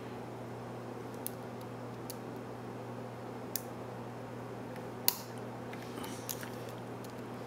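Scattered small, sharp metallic clicks from lockpicking tools working a Brinks 527 pin-tumbler padlock, five or so, the loudest about five seconds in, over a steady low hum.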